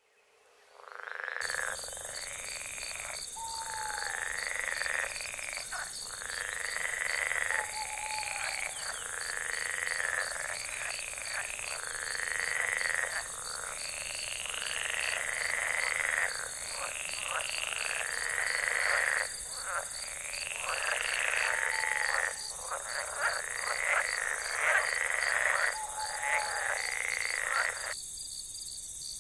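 A chorus of frogs croaking, repeated calls about a second long, over insects chirping in a fast steady pulse. The frogs stop near the end, leaving the insects.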